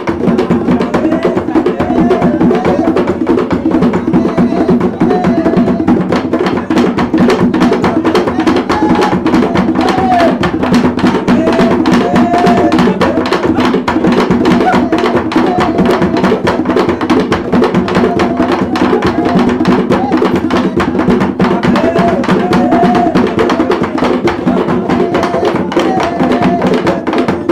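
Afro-Brazilian ceremonial drumming: dense, fast percussion with drums and a hard, clacking wooden beat, and a group of voices singing over it.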